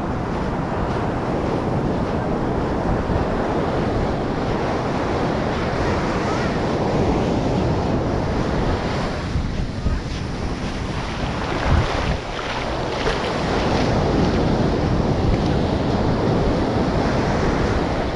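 Ocean surf breaking and washing up the sand in a steady wash, with wind buffeting the microphone in low rumbling gusts, one briefly louder about twelve seconds in.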